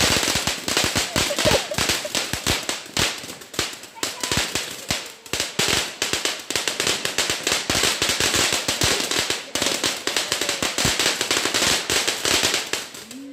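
Ground fireworks fountain spraying sparks with a dense, rapid crackle of sharp pops, many per second, easing briefly about four to five seconds in before crackling hard again.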